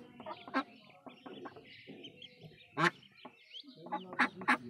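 Newly hatched ducklings peeping continuously, with several loud calls from the mother duck, the loudest about three seconds in and two more near the end.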